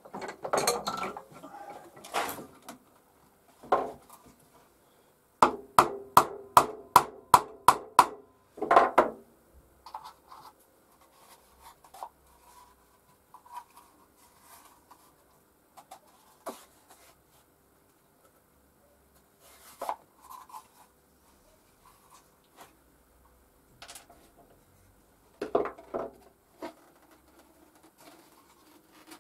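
Plastic dust-extraction pipe fittings and tools being handled on a workbench: a clatter, then a quick run of about nine sharp knocks, about three a second, followed by quiet scraping and rubbing and another short clatter near the end.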